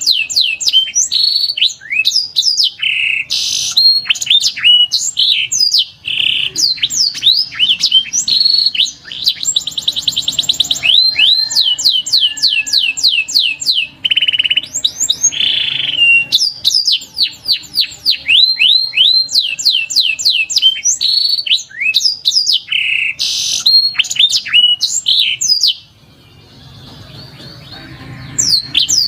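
Domestic canary singing: rapid tours of repeated downward-sweeping whistled notes alternating with fast buzzing trills, with a short pause near the end.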